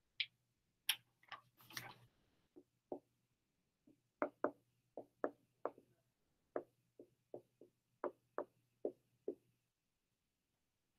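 Dry-erase marker on a whiteboard: a run of faint, short taps and strokes, about two a second, as someone writes. A few sharper clicks come in the first couple of seconds.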